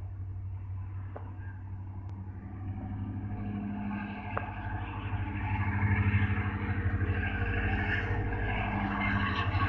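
Diesel engine of a DEMU local train's power car running as the train approaches and passes, a steady low drone that grows louder over the first six seconds or so and then stays loud.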